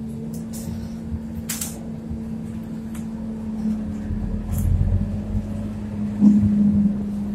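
Scania K230UB city bus heard from inside the passenger cabin while driving: its nine-litre five-cylinder diesel runs with a steady drone and a humming tone, low road rumble grows about four seconds in, and a louder surge comes near the end. A few light clicks and rattles from the cabin fittings sound over it.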